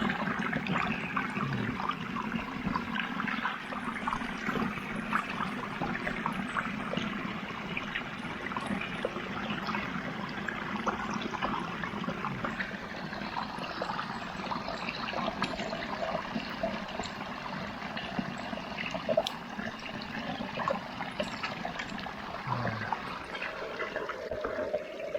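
Running stream water trickling steadily.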